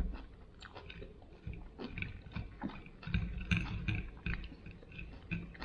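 Close-up chewing of a dressed salad of tomato, cucumber and spinach: many short, wet clicks and crunches, heavier between about three and four and a half seconds in. A sharp knock comes right at the start.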